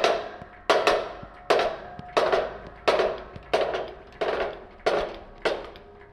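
Hammer blows on a steel bushing-removal tool, about one and a half a second, each with a short metallic ring, driving a worn control-arm bushing out of its arm.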